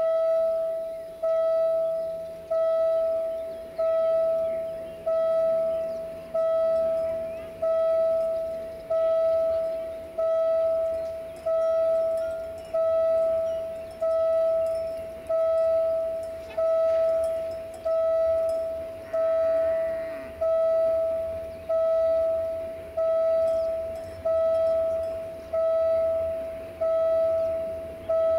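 Railway level-crossing warning bell ringing steadily, one ding about every 1.3 seconds, each struck sharply and fading away, the signal that a train is approaching the crossing.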